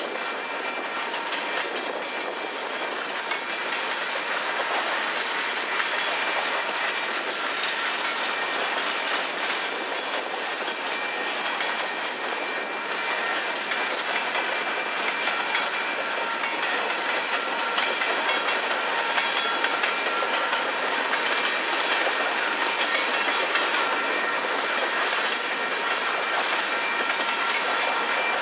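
Freight train rolling past: a steady clatter of steel wheels on the rails with no let-up, with a few faint ringing tones above it.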